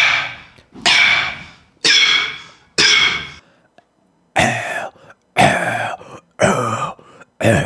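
Beatbox cough snare: a loud, forced whisper hit off with a cough, made eight times at about one a second. Each hit starts suddenly and fades. After a short pause the last four come out rougher and deeper than the first four.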